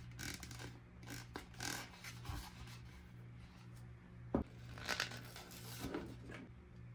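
Hands unboxing toys: packaging rustling and scraping in short strokes, with one sharp knock a little past halfway.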